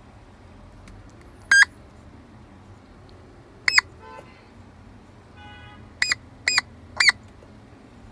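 Short electronic beeps from a shape sorter toy's sound effects: two single beeps, then three in quick succession about half a second apart, each with a quick bend in pitch. Fainter electronic tones come between them.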